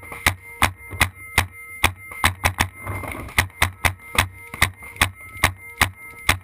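Paintball markers firing: a fast, slightly uneven string of sharp pops, about three a second.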